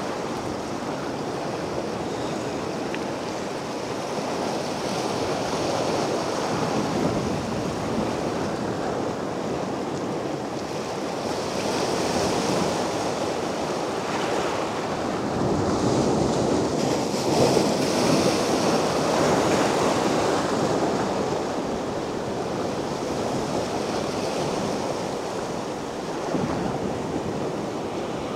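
Sea waves washing onto the beach, a steady surf noise that swells and falls, loudest about halfway through, with some wind on the microphone.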